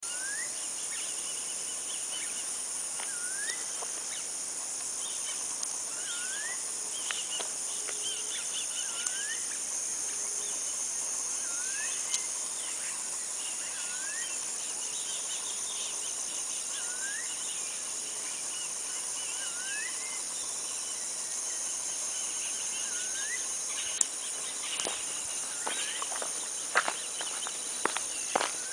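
Steady high-pitched drone of insects, with a bird repeating a short rising whistle every couple of seconds. Near the end, footsteps crunch and knock on the loose stones of the track.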